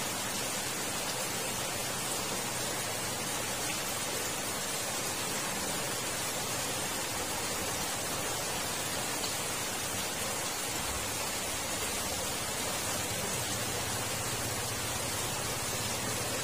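Steady rushing of water flowing through a concrete culvert beneath a steel grate, an even hiss with no breaks.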